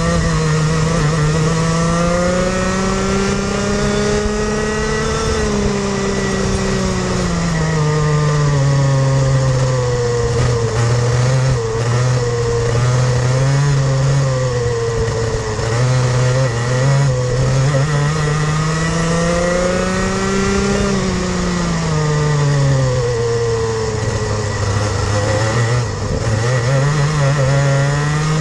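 Rotax 125cc two-stroke kart engine heard on board at racing speed. Its pitch climbs for several seconds at a time and falls back again: two long climbs with smaller rises and dips between them.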